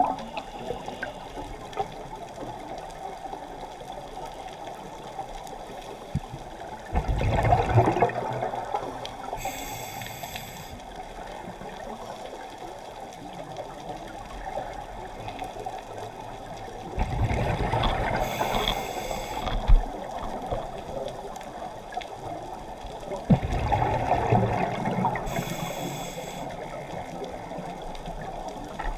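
Scuba diver breathing through a regulator underwater: three bubbling exhalations, each a second or two long, with a short whistling hiss of inhalation through the regulator after each, over a steady underwater hiss.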